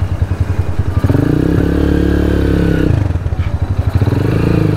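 Motorcycle engine running at low speed with a pulsing exhaust note. It opens up to a louder, fuller note about a second in, drops back about three seconds in, and rises again near the end.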